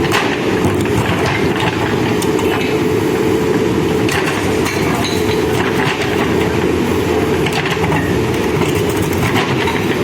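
Manitou backhoe loader's diesel engine running steadily under load, with scattered short knocks and clanks from the machine at work.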